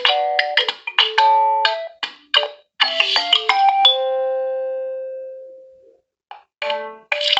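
Nokia 1.3 smartphone ringtones playing: a quick melody of short pitched notes ends on one long note that fades out over about two seconds, and after a brief pause the next ringtone's melody starts.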